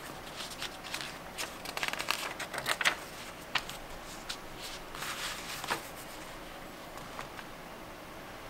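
Paper pages of a small zine being turned by hand, crackling and rustling in a quick run of flicks over the first few seconds, then a few separate rustles further on.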